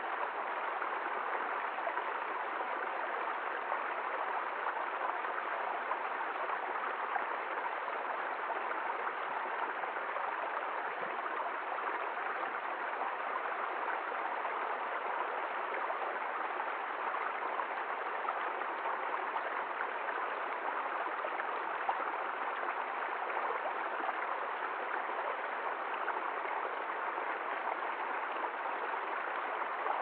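Small woodland stream running over rocks in a shallow cascade: a steady, unbroken rush and splash of water.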